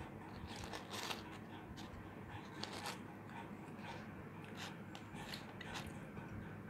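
Faint handling sounds: scattered soft clicks and rustles from the cardboard pizza box and slices being moved, over a low steady room hum.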